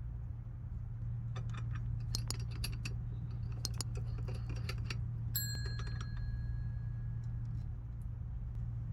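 Small metal snap-button parts and press dies clicking and clinking as they are handled. About halfway through, one metal piece gives a clear ring that fades over about two seconds. A steady low hum runs underneath.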